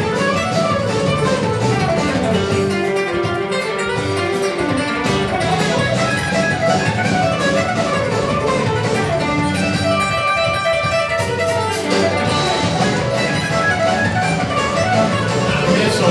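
Live country band playing an instrumental break, a fast picked mandolin lead over acoustic and electric guitars, bass and drums.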